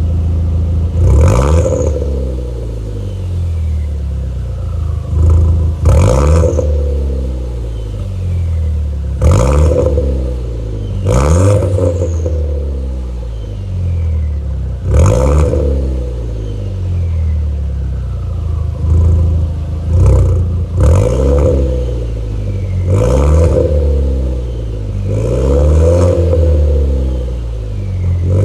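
Volkswagen-Audi 1.8T turbocharged four-cylinder engine idling and blipped about nine times, each rev rising and dropping back quickly. A thin falling whistle from the turbo follows many of the blips as it spools down.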